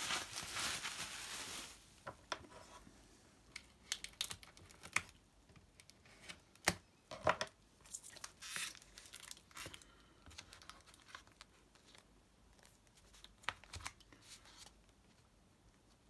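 Clear packing tape being peeled and torn off a grey cardboard package, a steady rasp for the first couple of seconds. Then scattered crinkles, taps and rustles as the tape, cardboard and paper inserts are handled and the package is opened.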